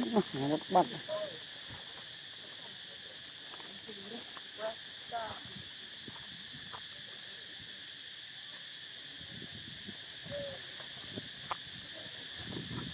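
Steady, high-pitched chorus of insects. A few short pitched cries sound in the first second, and a couple of fainter ones come about five seconds in.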